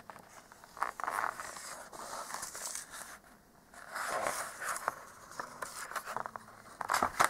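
Paper pages of a large picture book being handled and turned: a few short rustles and scrapes of paper, the loudest about four seconds in and near the end.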